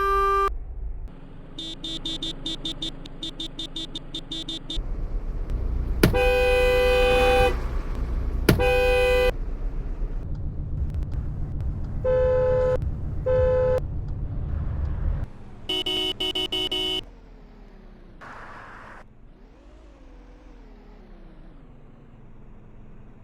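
Car horns honking in a series of separate clips: first a rapid, stuttering horn for a few seconds, then two long blasts, two short toots, and one more blast about two-thirds of the way through. A low engine rumble runs under them. The last few seconds are quieter, with only traffic noise.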